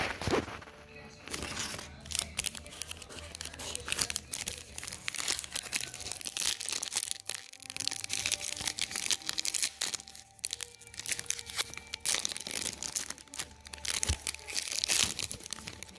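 Paper wrapper of a vintage trading-card pack being torn and crinkled by hand, in irregular crackles and rustles as the cards are worked out of it.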